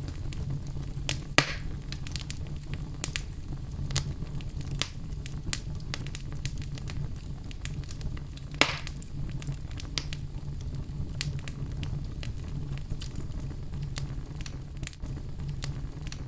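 Campfire burning: a steady low rumble of flames with frequent sharp crackles of burning wood, and two louder pops, about a second and a half in and near the middle.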